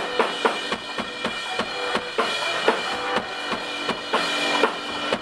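A live rock band's drum kit plays a steady beat at about four hits a second, with kick and snare out front and held instrument tones underneath.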